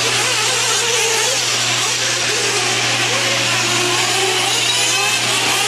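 Several 1/8-scale nitro truggies racing, their small two-stroke glow-fuel engines revving up and down with a high buzzing whine. A steady low hum runs underneath.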